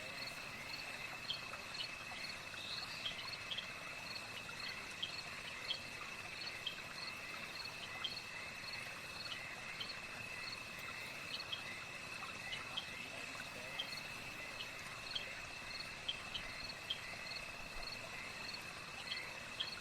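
Night chorus of insects: a steady high-pitched trill under regular short chirps, about two a second, with occasional sharper pips.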